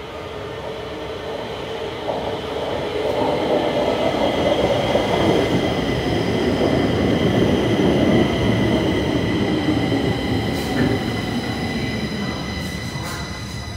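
Stockholm metro train pulling into the station platform. The rumble of wheels on rails grows louder to a peak around the middle, then falls away, over a steady high-pitched whine.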